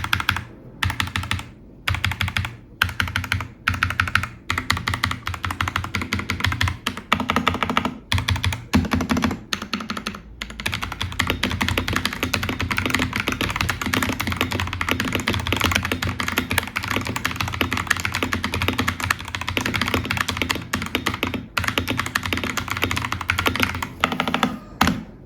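Typing on a mechanical keyboard with Outemu Jade White switches, the key clicks rattling in quick runs. Short bursts with pauses give way, about ten seconds in, to steady fast typing.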